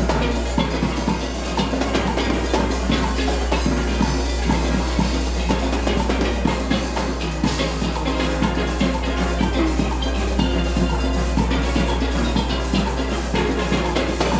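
Full steel orchestra playing a calypso arrangement: many steel pans together, backed by drums.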